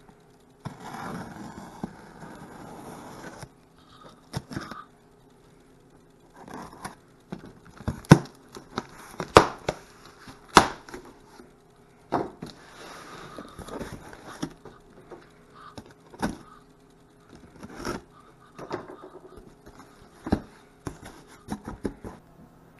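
Cardboard shipping box being opened: a utility knife slicing and scraping along the packing tape, then the cardboard flaps pulled open and handled, with scraping stretches and a run of sharp knocks and taps, the loudest in the middle.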